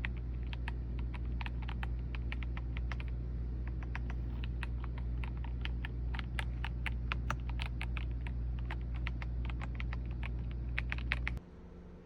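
Typing on a Surmen mechanical keyboard with white linear switches: a fast, irregular run of thocky keystrokes over a steady low hum. The typing and the hum both stop shortly before the end.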